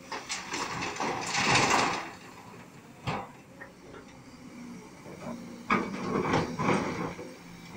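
Kobelco 210 excavator's diesel engine running under faint steady load while its bucket dumps rock and soil into a dump truck, with a loud spell of rattling and clattering in the first two seconds. There is a single sharp knock about three seconds in, then the bucket scrapes and digs into rocky ground near the end.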